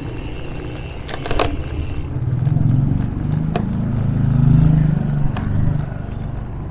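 Riding noise from an e-bike on the road: a steady, uneven rumble of wind on the camera microphone together with rolling tyre noise, with a few short clicks.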